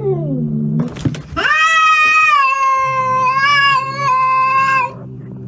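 Ginger domestic cat yowling at another cat in a standoff, an aggressive warning cry. A short falling cry and a brief knock come first, then one long drawn-out yowl of about three and a half seconds that ends shortly before the close, with a low growl underneath.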